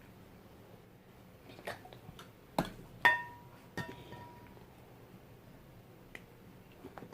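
Scattered clicks and knocks of a container being handled and opened, eight or so in all; the loudest come two to three seconds in, and one of them leaves a brief ringing tone.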